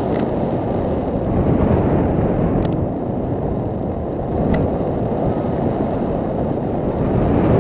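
Wind from a paraglider's airspeed rushing over a foot-mounted GoPro Hero2: a steady low rumble, with two faint clicks partway through.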